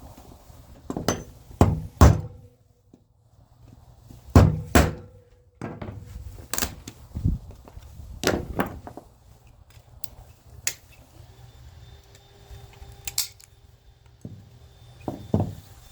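Irregular thunks and knocks of hand tools striking and handling small parts while a refrigerator compressor's electrical parts are taken apart, about a dozen hits spread out with pauses between them.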